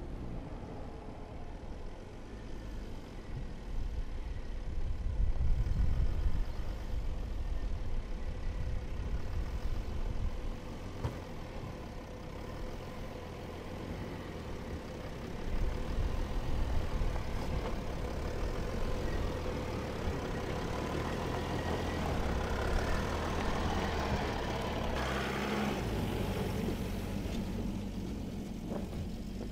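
Mercedes-Benz X-Class X 350 d's V6 turbodiesel engine running at low revs as the pickup crawls slowly off-road over gravel mounds, getting louder a few seconds in and again about halfway through.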